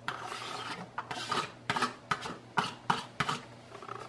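Diced onion and red bell pepper being scraped off a plate into a frying pan: a run of rasping scrapes with several sharp taps in the second half.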